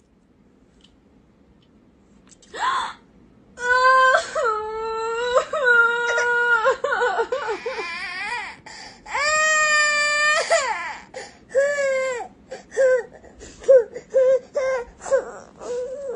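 Baby crying. After a quiet start it breaks into long wailing cries, pauses, wails again, and ends in short, broken sobs.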